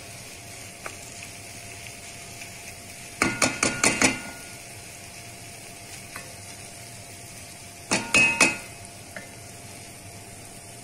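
A wooden spoon stirring sliced boiled eggs in a thick sauce in a pan, over a low steady sizzle. There are two quick runs of knocks with a short ring against the pan: five or six about three seconds in, and three or four near eight seconds.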